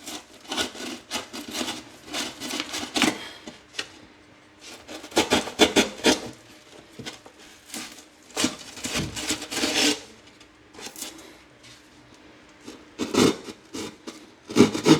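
Drywall keyhole saw cutting pipe holes through a drywall patch: rapid back-and-forth rasping strokes in four bursts with short pauses between.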